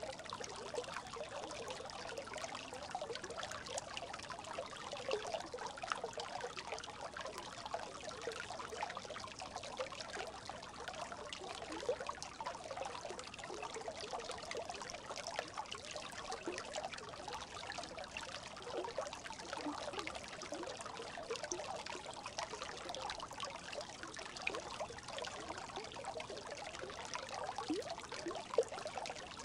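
A brook babbling: water trickling and gurgling steadily, with many quick little gurgles.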